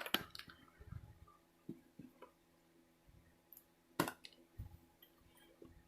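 Handling noise from a small tool kit pouch being moved and opened: scattered soft clicks and taps, with one sharper click about four seconds in.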